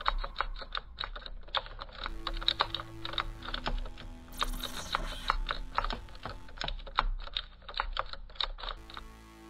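Rapid, irregular typing on a laptop keyboard, a quick run of key clicks that stops shortly before the end.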